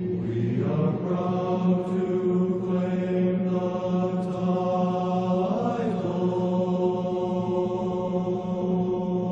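Background music: a chanted, drawn-out vocal line over a steady drone, with the pitch sliding about a second in and again around six seconds.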